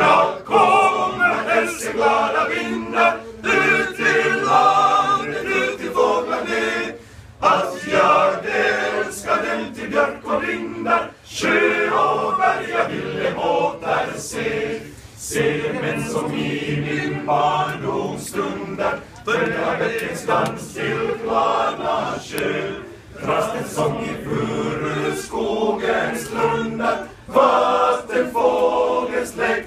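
Male voice choir singing a cappella in several parts, in long phrases with short breaks between them.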